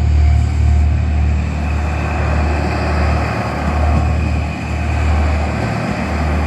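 1200 series diesel railcar passing over a level crossing: a steady low diesel drone under loud wheel and rail noise. The crossing bell's regular ding-ding is heard at the start, then is drowned out by the train.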